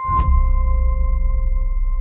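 Logo sting: a sharp hit with a deep boom, and a bright chime-like tone that rings on steadily.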